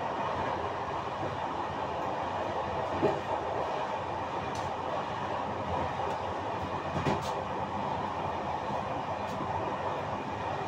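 Passenger train coach running along the track: a steady rolling rumble and rattle of wheels on rails, with two short louder knocks about three and seven seconds in.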